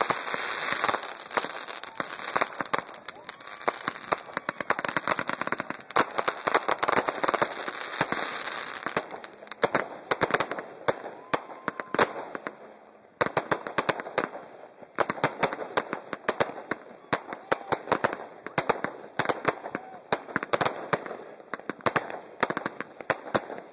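Aerial fireworks bursting with dense, rapid crackling pops. The barrage thins to a brief lull a little past halfway, then starts again suddenly.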